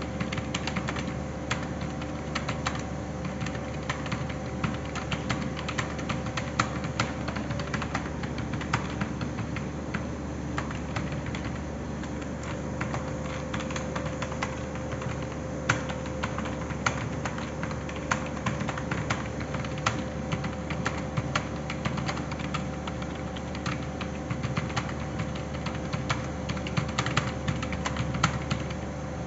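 Continuous typing on a computer keyboard: quick, uneven key clicks, with a steady low hum underneath.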